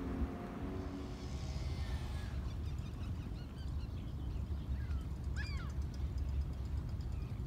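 A personal watercraft's engine drones steadily and fades out within the first two seconds. Then birds call in short, arching calls, one of them clear about five and a half seconds in. Wind rumbles on the microphone throughout.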